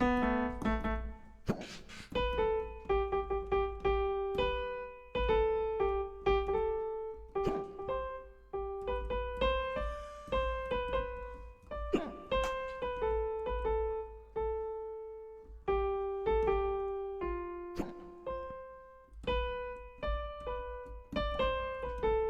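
Keyboard playing a slow melody one note at a time, each note struck and fading, with a few knocks underneath.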